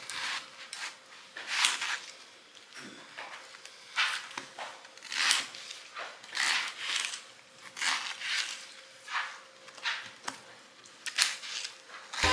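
Kitchen knife slicing through a raw onion, a short crisp cutting stroke roughly once a second.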